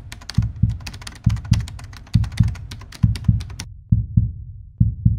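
Heartbeat sound effect from the intro soundtrack: paired deep thumps repeating a little under once a second, with fast sharp clicks above them that stop about three and a half seconds in.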